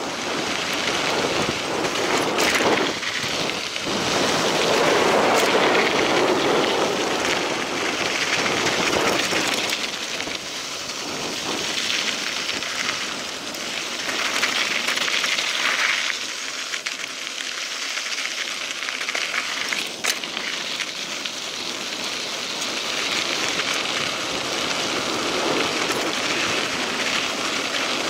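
Mountain bike tyres rolling over a gravel dirt road: a steady gritty hiss that swells and fades, with a few sharp clicks.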